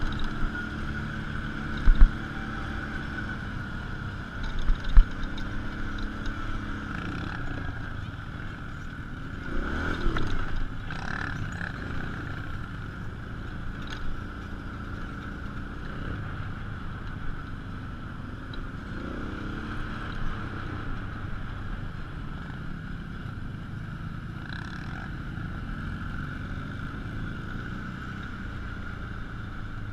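Off-road vehicle engine running on the move over rough ground, with a steady whine on top. The engine pitch rises and falls a few times as it speeds up and slows. Two sharp knocks come about two and five seconds in.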